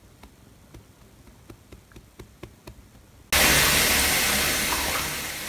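Soft, rhythmic pats on a cat's rump, about three a second. About three seconds in, these give way suddenly to tap water running loudly into a bathtub with a steady rushing hiss.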